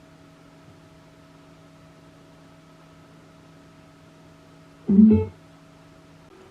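Faint steady electrical hum, with one short, loud, pitched tone about five seconds in, a brief musical sound lasting under half a second.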